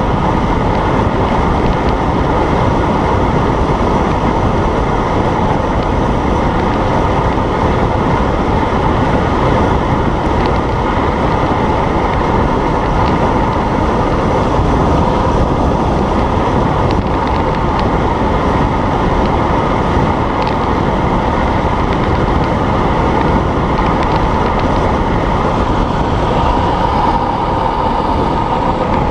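Loud, steady wind rush buffeting the microphone of a camera on the handlebars of a road bike descending fast, mixed with road rumble from the tyres.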